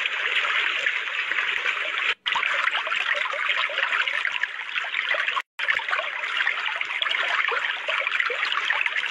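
Steady trickling, babbling water like a small stream, cutting out briefly twice.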